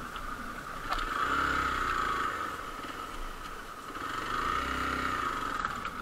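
Hero Xpulse 200's single-cylinder engine running at low speed on a rough gravel and dirt track, with the revs rising and easing off twice.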